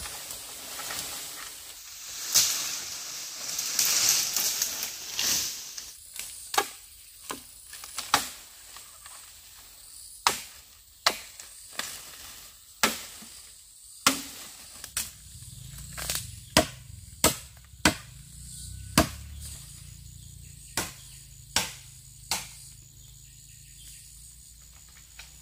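A series of sharp knocks at uneven intervals, roughly one a second, with a low steady hum coming in about halfway through.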